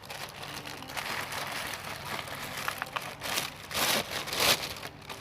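Rustling and crinkling from material being handled, with a few louder bursts in the second half.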